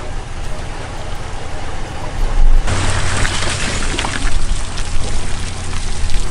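Pickup truck's engine running at a boat ramp under a steady rush of water and wind noise. A little under three seconds in, the rush turns louder and brighter as the wet aluminium boat trailer comes out of the water, with water splashing and streaming off it.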